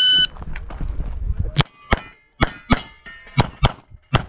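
Shot timer start beep, one short electronic tone, followed about a second and a half later by pistol shots fired in quick pairs (about seven shots) from a CZ 75 SP-01 9mm with a red-dot optic, shooting a USPSA Carry Optics stage.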